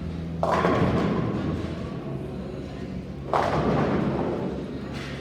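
Two crashes of bowling pins being struck, about three seconds apart. Each starts sharply and dies away over a second or so. Steady background music runs underneath.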